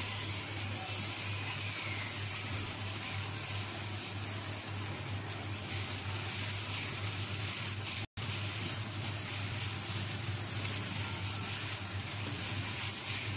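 Hand squeezing and mixing crushed chocolate cake crumbs with melted butter in a paper bowl: a steady rustling hiss over a low hum, cutting out for an instant about eight seconds in.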